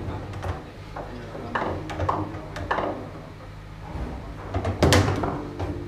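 Foosball in play: sharp clacks of the ball being struck by the plastic figures and knocking against the table walls, with the rattle of the rods sliding and spinning. The loudest flurry of hits comes about five seconds in.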